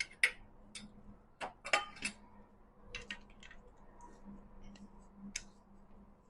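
A utensil tapping and scraping against a pot while steamed glutinous rice is mixed: a dozen or so scattered light clicks and knocks, irregularly spaced.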